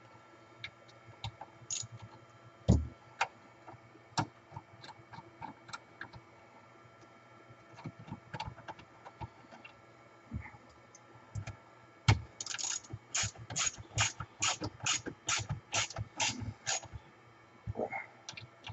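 A ratchet clicking steadily, about three clicks a second, as the front blade guide is fastened onto the saw frame. Before it come scattered light clicks from handling parts, and one sharp knock about three seconds in.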